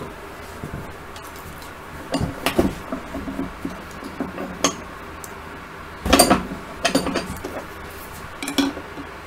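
A metal air-conditioner fan motor being handled and shifted on a wooden workbench: a handful of separate knocks and metallic clinks, the loudest about six seconds in.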